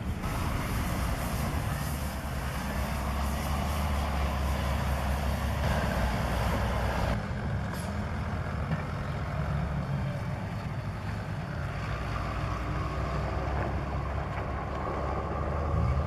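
Diesel engine of a Volvo wheel loader with a rotary sweeper attachment running steadily as it drives and sweeps, with a hiss over it that cuts off abruptly about seven seconds in.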